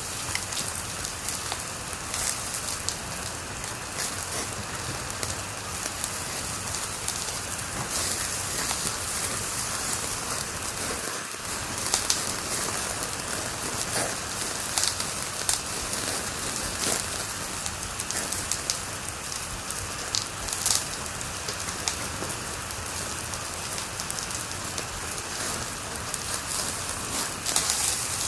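Wood fire crackling in a fireplace: a steady hiss with frequent sharp pops and snaps at irregular moments.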